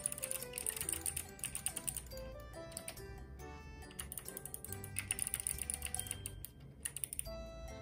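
Background music: a light melody of short stepping notes over rapid, clicky percussion that comes in busy patches.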